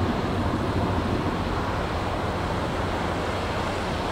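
Ro-Ro passenger ferry's engines giving a steady low drone as it manoeuvres alongside the quay, with its propellers churning the water and wind buffeting the microphone.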